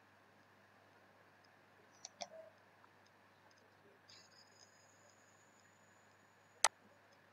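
Computer mouse clicks against a near-silent background: two soft clicks about two seconds in and one sharp click near the end.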